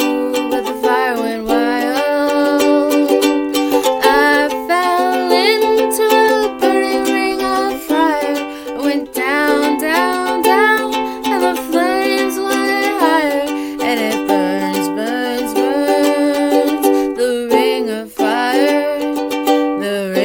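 Ukulele strummed continuously, playing the chords of a song accompaniment.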